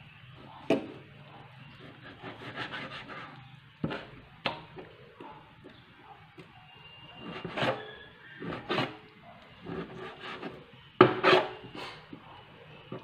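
Kitchen knife cutting raw pork on a cutting board: irregular knocks of the blade striking the board and short scraping strokes, the loudest knocks about eleven seconds in.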